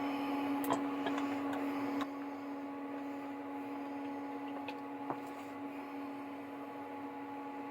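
A steady hum with a low tone that drops in level about two seconds in, and a few light clicks.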